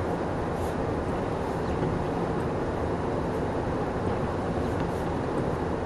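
Steady engine and tyre noise inside a car's cabin as it drives on a road covered in deep snow.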